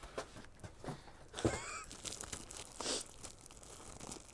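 Plastic and cardboard packaging crinkling and crackling as it is handled and pulled at, with a brief squeak about a second and a half in.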